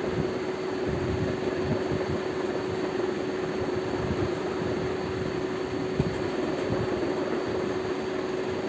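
Steady mechanical hum with an even rushing noise behind it, and a single soft knock about six seconds in.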